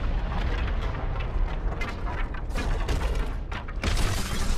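Film battle sound effects: an explosion with a deep rumble and dense crackling debris. A little before the end the sound changes abruptly to a brighter, harsher roar of noise.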